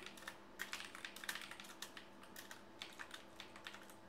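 Typing on a computer keyboard: a quick, irregular run of key clicks as a command is entered.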